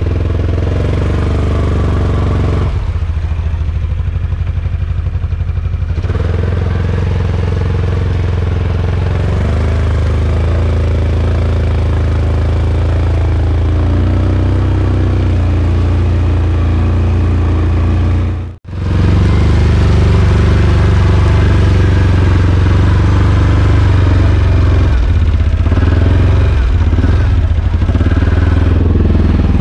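ATV (four-wheeler) engine running steadily under way, heard from on the machine. There is one brief dropout a little past the middle.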